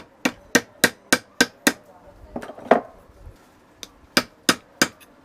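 Hammer peening rivets on a cooler motor's end cover, spreading them to hold the cover. A quick, even run of about seven strikes, a pause with a duller knock, then three more strikes near the end.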